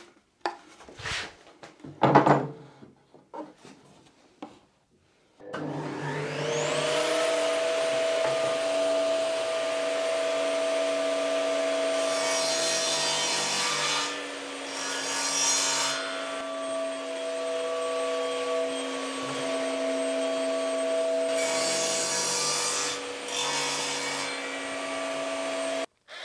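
Compact table saw starting up with a rising whine about five seconds in, then running steadily while a wooden frame piece is fed through the blade to shorten it; the cuts come as three spells of louder hissing. Before the saw starts, a few knocks of wood being handled.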